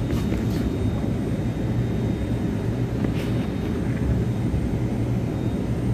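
Delhi Metro Pink Line train running, heard from inside the carriage as a steady low drone.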